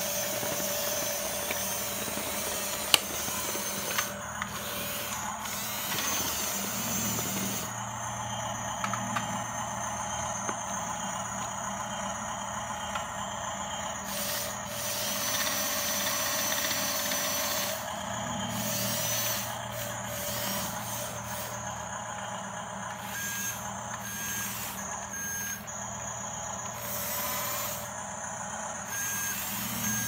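Electric motors and plastic gearing of a toy remote-control bulldozer whirring as it is driven, with a sharp click about three seconds in. Short beeps repeat several times in the last third, like the toy's reversing alarm.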